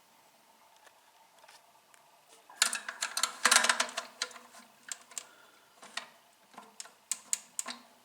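Plastic parts of a toilet cistern's flush valve assembly clicking and knocking as they are handled and rotated. A quick flurry of clicks comes about two and a half seconds in, then sparser single clicks.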